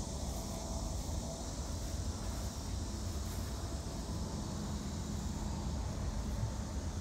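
Outdoor ambience: a steady low rumble of wind on the phone's microphone under an even high hiss.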